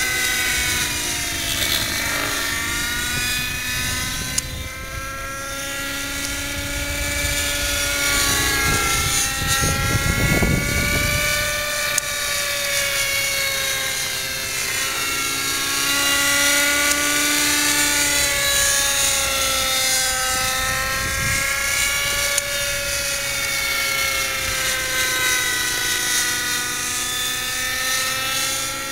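X-Cell 90 radio-controlled helicopter in flight: the engine and rotors give a steady whine whose pitch wavers up and down as it manoeuvres. A brief low rumble comes about ten seconds in.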